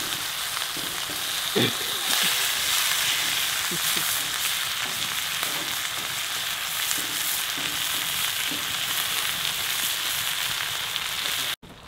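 Bacon and hot fat sizzling in pans over a campfire: a steady, dense crackling sizzle that cuts off suddenly near the end.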